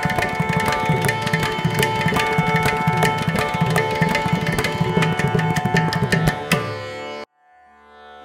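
Background music: quick drum strokes over steady held tones. It fades and cuts off abruptly about seven seconds in, and a quiet new piece begins just before the end.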